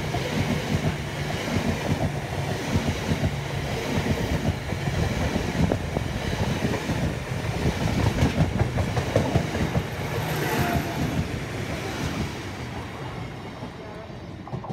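Freight train of bogie hopper wagons rolling past close by, the wheels clattering over the rail joints in a rapid, uneven rhythm. The sound fades over the last few seconds as the end of the train draws away.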